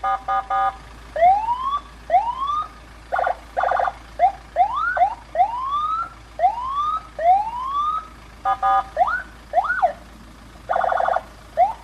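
Senken CJB100BD electronic siren switching between tones: repeated rising whoop sweeps, quick short yelps, and four short buzzing horn blasts.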